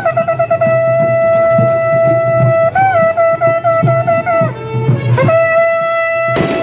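Music: a wind instrument plays a bending, ornamented melody over a steady low drone, with a soft drumbeat underneath. A single sharp crack comes just before the end.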